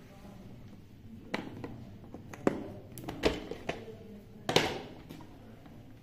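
Plastic clicks and knocks from a Lefant F1 robot vacuum's dust bin being pressed, unlatched and lifted out of its compartment, with the loudest clunk about four and a half seconds in.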